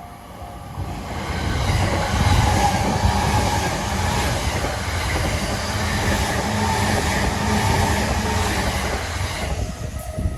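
A JR Chuo Line train passing over a level crossing. Its wheels on the rails build to a loud, steady rumble about two seconds in and fade near the end. The crossing's warning bell rings at the start, is drowned out while the train goes by, and is heard again as the train clears.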